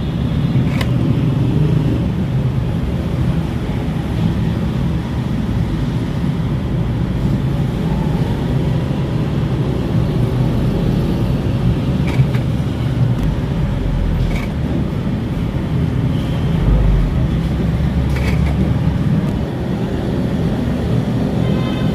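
Steady low rumble of background road traffic, with a few short, sharp clicks over it.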